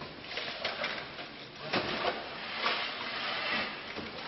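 Objects being handled, shifted and knocked about during a search of a small storage room: scraping and rustling with a few sharp knocks, over a steady hiss.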